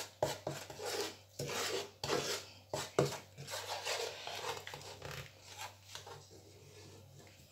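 Wooden spatula scraping and stirring melted sugar around a nonstick frying pan, in a run of uneven rasping strokes that fade out near the end.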